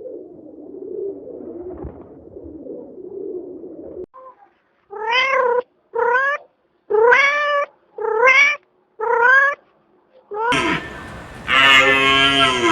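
A cat meowing five times in a row, about once a second, each meow rising in pitch. A low, rough sound comes before the meows. Near the end a louder, different animal call cuts in.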